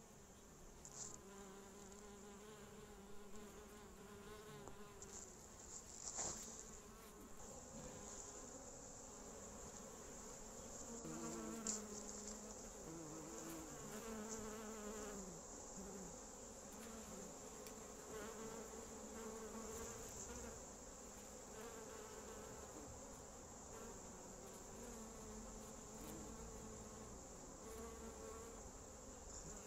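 Honeybees flying around a hive entrance: a faint buzzing of several bees whose pitches waver and overlap. A couple of soft knocks come about six and twelve seconds in.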